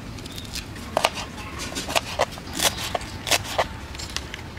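Sweet-corn kernels being pried off the cob by thumb into a plastic bowl: a run of sharp clicks and snaps as they break away and drop, starting about a second in and stopping shortly before the end.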